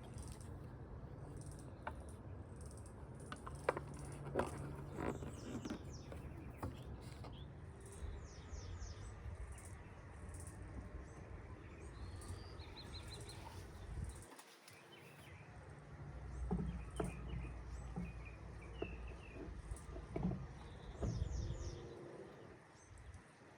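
Small birds chirping in short repeated runs of falling notes, over a low rumble, with a few sharp clicks in the first few seconds.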